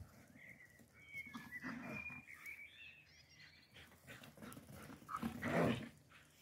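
Galgos (Spanish greyhounds) playing, with one short, rough dog vocalisation, the loudest sound, about five and a half seconds in. A few faint high chirps come in the first half.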